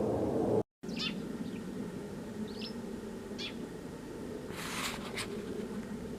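Low rumble of an aircraft overhead that cuts off abruptly less than a second in, leaving a quieter steady low drone. Over it come a few short high bird chirps, and a brief hissing rustle a little under five seconds in.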